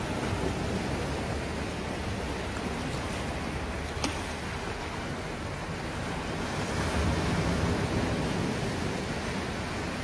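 Sea waves breaking and washing over shoreline rocks in a steady surf, with one wave coming in louder about seven seconds in. A single brief click about four seconds in.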